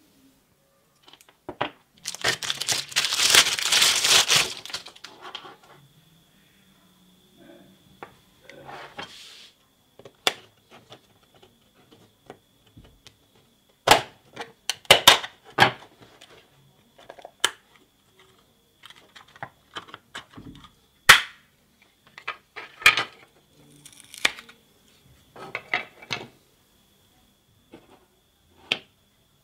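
A knife blade pries apart the glued seam of a black plastic power-adapter case, giving a run of sharp, irregular cracks and clicks. A loud noisy burst of about three seconds comes a couple of seconds in, before the cracking starts.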